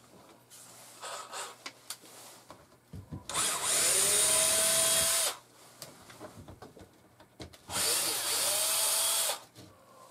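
Cordless drill used as a screw gun, run twice for about two seconds each: the motor whine rises as it spins up, holds steady, then stops. Light handling knocks come before the first run.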